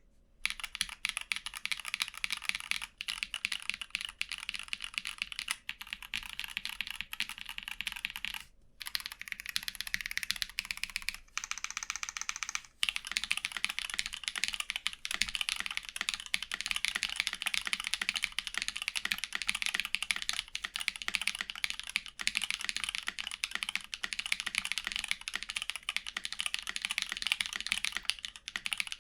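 Fast typing on a Think6.5 v2 mechanical keyboard with Glorious Panda tactile switches, lubed and filmed, under GMK keycaps: a dense run of key clacks. Typing pauses briefly around nine and thirteen seconds in, then runs faster and denser.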